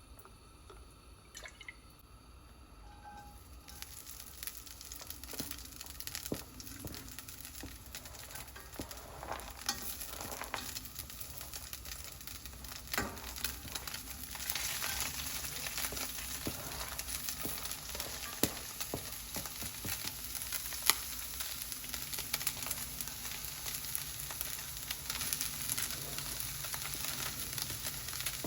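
Food frying in hot oil: a sizzle that starts a few seconds in and grows louder about halfway through, with scattered clicks and light knocks.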